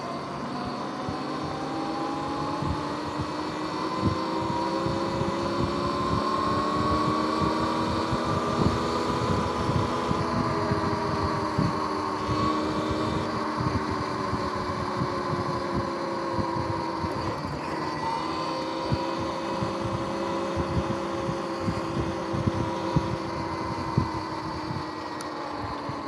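Sur-Ron X electric dirt bike's motor and drivetrain whining under way, the pitch climbing as it gathers speed, dipping briefly about two-thirds through and falling near the end as it slows. Wind buffets the microphone with low thumps.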